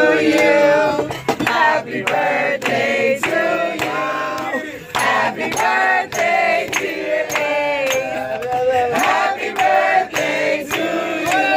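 A group of men and women singing or chanting together in rhythm, with handclaps keeping the beat.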